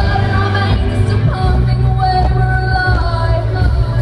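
Live pop music: a woman sings long held notes over a heavy, steady bass line.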